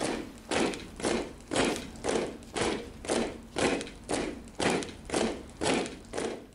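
A steady series of heavy thuds at a slow march pace, about two a second, played as a stage sound effect.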